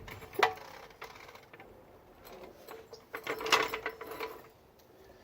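Metal-on-metal hand-tool work on a car's steering knuckle to free the outer tie rod end: one sharp metallic knock about half a second in, then a quicker cluster of clanks and clicks around three and a half seconds, with a faint ring after.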